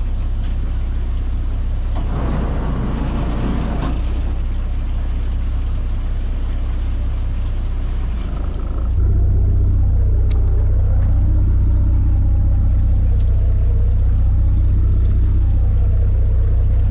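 Small fishing boat's engine running with a steady low rumble, which steps up louder about nine seconds in.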